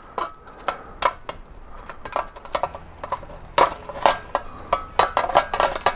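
Clicks, clinks and light rattles of a motorcycle's front cowling being worked free by hand and its wiring pushed through, with the clatter growing denser about halfway through.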